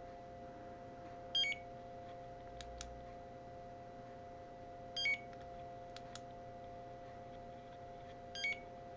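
Starline B9 car-alarm key fob beeping as its buttons are pressed in turn: three short chirps about three and a half seconds apart, each a quick falling run of high tones. The fob has powered up on a fresh battery and its buttons respond.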